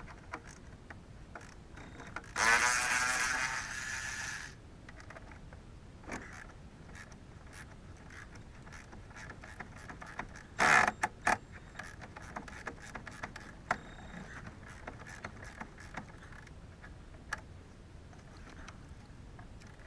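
Hand tools working on a snowblower's metal frame: scattered small metal clicks and taps, a louder burst of rapid clicking lasting about two seconds a couple of seconds in, and a sharp metal clank about ten seconds in.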